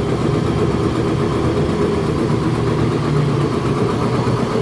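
An engine or motor running steadily with a low, even rumble.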